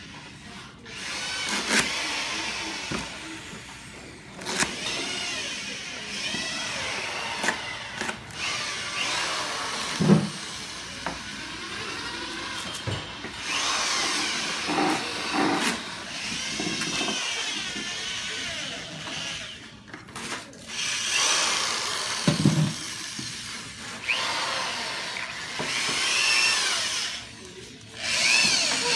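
Electric drill run in repeated short bursts, its motor whine rising in pitch as it speeds up and falling as it slows, while spinning ears of corn. A few low knocks come between bursts.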